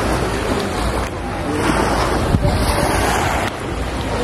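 Steady wind noise buffeting the microphone by the sea, a low rumble under an even rush of noise.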